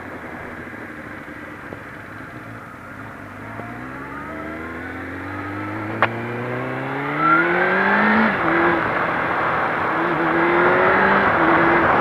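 Onboard sound of a Suzuki GSX-R 750 streetfighter's inline-four engine accelerating: its pitch rises for several seconds, drops at an upshift about eight seconds in, then pulls on more steadily. Wind noise grows as speed builds, and there is a single sharp click about six seconds in.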